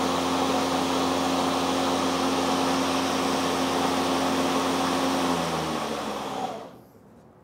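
The Mowrator S1 electric robotic mower's cutting blade engaged and spinning: a steady motor hum over a rush of air. About six seconds in it winds down and stops as the top triggers are let go, since one of them must be held for the blade to keep turning.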